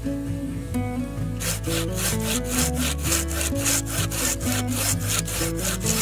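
Hand pruning saw cutting through a log in quick back-and-forth strokes, about four a second, starting about a second and a half in.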